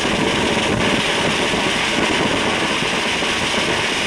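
Ground fountain firework spraying sparks with a loud, steady hiss.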